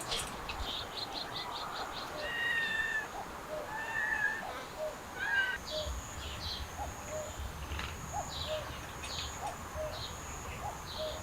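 A kitten mewing three times in short, high, even calls, while small birds chirp repeatedly throughout.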